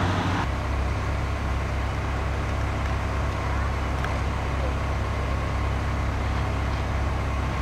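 Steady low drone of engines running.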